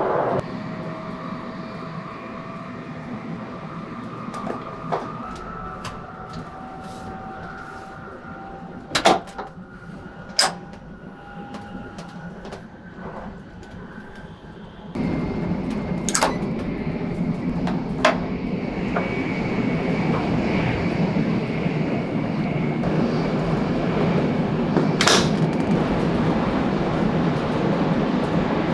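Steady running noise of an N700S Shinkansen heard from inside the train, stepping up abruptly in loudness about halfway. A few sharp clicks and knocks from doors and fittings are heard over it.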